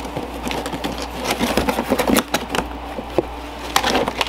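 Cardboard box being opened and its contents handled: an irregular run of rustles, scrapes and knocks from the flaps and packaging.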